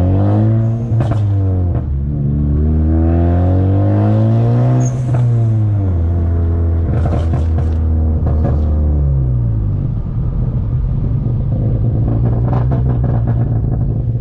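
Big-turbo Ford Focus ST engine and exhaust under way, the engine note rising with the revs for the first few seconds, then falling back and settling into a steady low rumble. Sharp exhaust crackles and pops from its pop tune come about a second in, in a cluster in the middle, and again near the end.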